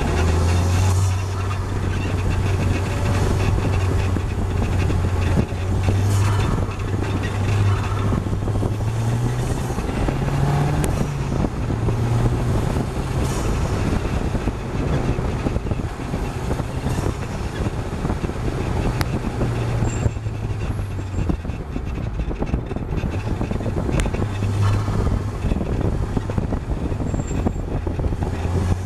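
KTM X-Bow's turbocharged Audi 2.0 TFSI four-cylinder engine heard from the open cockpit while driving on track, its low drone rising in pitch under acceleration and dropping back with gear changes and lifts, over a steady rush of wind and road noise.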